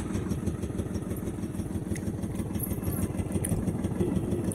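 A motor vehicle engine running steadily close by, a rapid low chugging that grows slightly louder.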